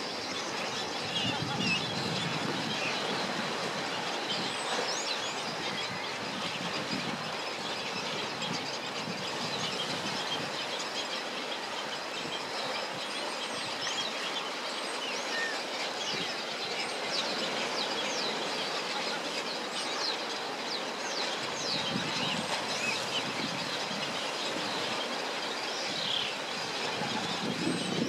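Many faint, quick high chirps of small birds over a steady rushing background noise.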